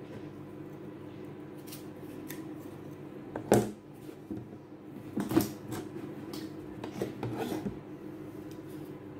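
Kitchen knocks of a steel knife, plantain slices and a plastic bowl against a plastic cutting board. There are a few sharp clacks, the loudest about three and a half seconds in and a cluster near the end, over a steady low hum.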